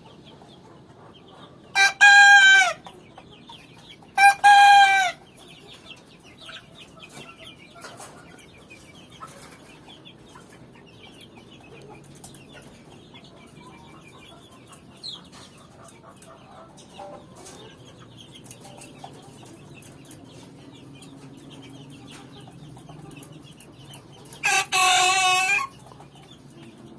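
Rooster crowing three times: two crows close together near the start and one near the end, each ending with a drop in pitch. Between them there is faint clucking and chirping.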